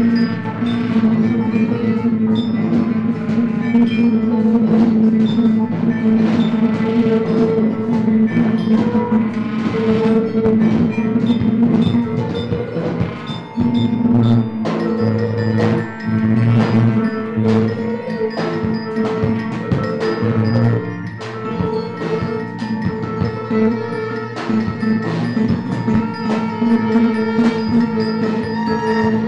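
Live experimental ensemble music built from repeated pulses. Many quick struck, bell-like notes sound over steady held drone notes, with bowed double bass, bass clarinet, electric guitar and drums in the band. The sound is a dense, continuous wash that thins briefly about halfway through.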